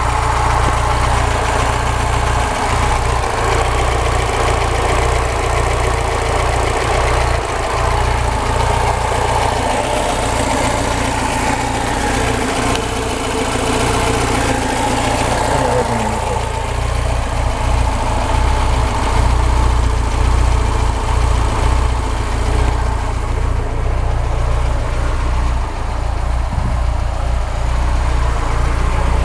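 VAZ 2107 fuel-injected four-cylinder engine idling steadily, with the knock that the owner hears from around the number-one spark plug and cannot trace, although the valves are adjusted and the camshaft, rockers, timing chain and ignition parts are all new.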